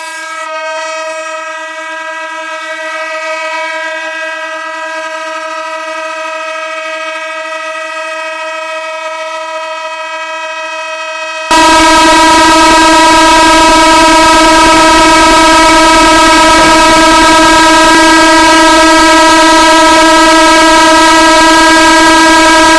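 A steady, unwavering horn-like tone held throughout. About halfway through it jumps suddenly much louder and harsher.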